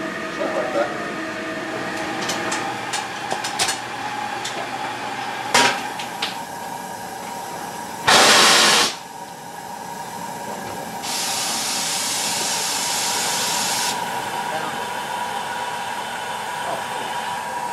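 Hissing from a large-scale Pennsylvania H10 live-steam locomotive being fired up. There are a few light clicks first, then a short, loud blast of hiss about eight seconds in. A steadier hiss follows for about three seconds.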